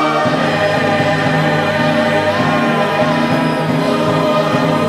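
Music with a group of voices singing together, choir-like, at a steady level.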